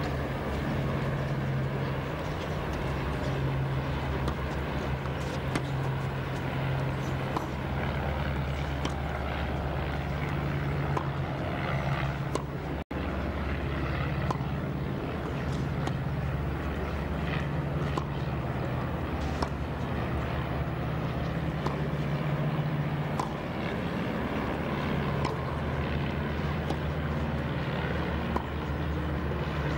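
Low, steady droning background noise with faint tennis ball strikes scattered through it during play on a clay court. The sound cuts out for an instant about 13 seconds in.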